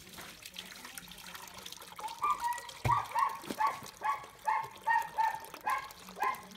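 A dog barking repeatedly, about two to three short barks a second, starting about two seconds in.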